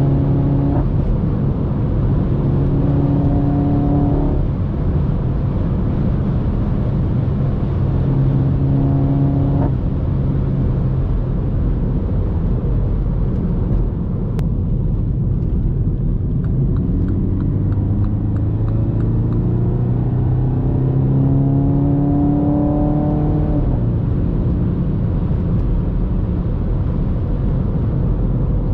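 F56 Mini Cooper S's turbocharged four-cylinder engine heard from inside the cabin at highway speed, over steady road and tyre rumble. The engine note climbs several times as the car accelerates, most clearly in a long climb about two thirds of the way in.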